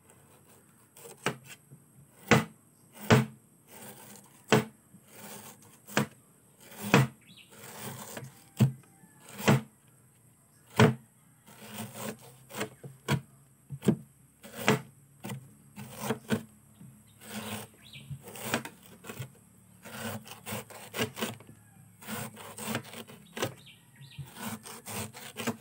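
Kitchen knife slicing a banana blossom into rounds, each stroke a crisp cut ending in a sharp knock of the blade on the hard table surface, irregular at about one or two a second.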